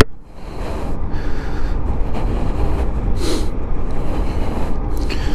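Wind rumbling steadily over the microphone of a bicycle riding at speed. The rider's breathing puffs every second or so.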